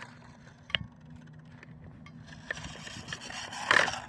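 Small toy-grade RC car with an upgraded 130-size electric motor driving over rough ground: tyres scuffing and scraping over a faint steady motor hum, with a few sharp knocks and a louder scrape near the end.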